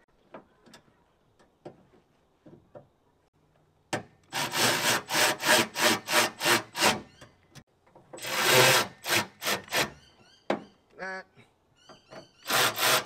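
Bolts being tightened into an aluminium battery mount with a hand tool. After a few faint clicks, runs of quick scraping strokes, about four a second, start about four seconds in. They come again about eight seconds in and just before the end, with small high clicks between them.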